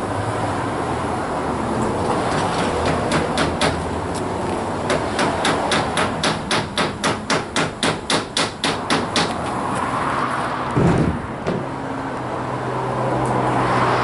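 Claw hammer driving roofing nails through a rubber weatherstrip into the bottom edge of a wood garage door: a long run of even, rapid blows, about three a second, with a short break early on. A single dull thump comes about eleven seconds in, and the hammering starts again near the end.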